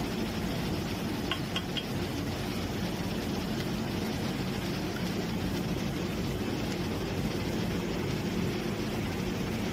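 Steady rumbling background noise, with three quick faint high clinks close together about a second and a half in.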